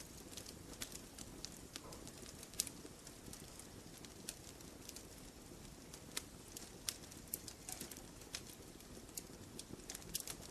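Campfire of burning logs: irregular sharp crackles and snaps over a low steady rumble of flames, with one louder snap about two and a half seconds in.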